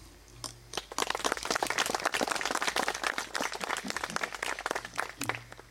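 Audience applauding with dense, irregular hand claps that start about half a second in and die away near the end.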